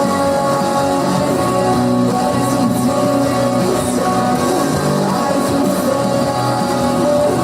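Loud, steady music from a live hip-hop set: a rock-leaning track with guitar.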